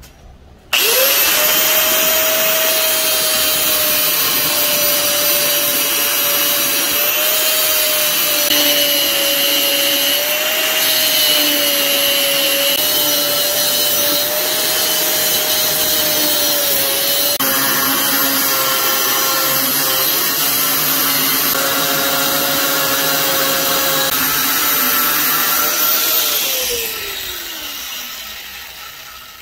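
Angle grinder with a cutoff disc cutting a steel knife blank: a steady high motor whine with cutting hiss, starting about a second in. Near the end it is released and the whine falls away as the disc spins down.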